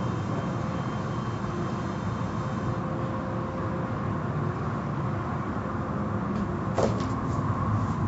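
Automatic tunnel car wash running: spinning cloth brushes and spraying water on a car, heard through the viewing window's glass as a steady rumble. A sharp clack sounds once near the end.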